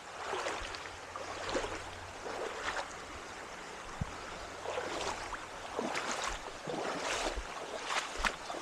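Creek water running steadily, with irregular short sloshes and splashes over it and a single sharp click about 4 seconds in.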